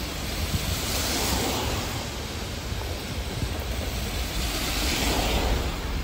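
Steady rushing noise of riding a bicycle on a wet road in the rain: wind on the microphone mixed with tyre hiss on the wet surface, swelling about a second in and again near five seconds in.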